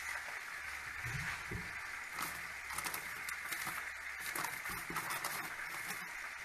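Chicken frying in hot oil: a steady sizzle with many small scattered pops and crackles.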